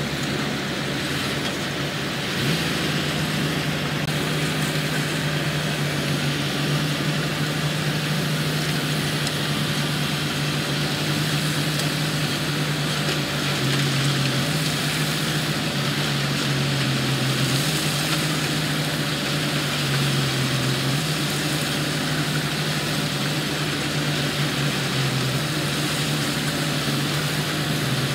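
Diesel engine of heavy construction machinery running steadily, its hum dipping slightly in pitch a few times.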